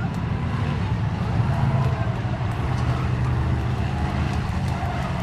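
Race-car engines of linked stock cars in a figure-8 train race, running together as a steady low drone.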